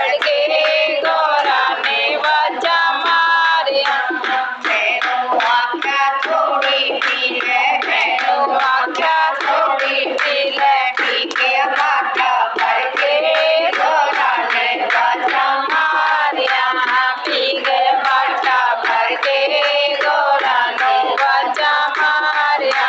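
A group singing a Hindi devotional bhajan, with hand-clapping in time to the song.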